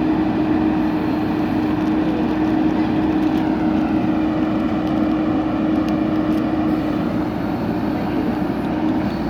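JCB backhoe loader's diesel engine running steadily at working revs.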